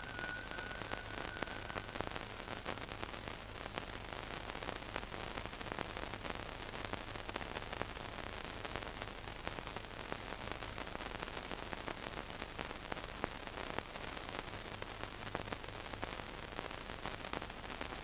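Steady hiss and faint crackle of an old film soundtrack, with a low hum underneath. A thin high tone fades out in the first two seconds.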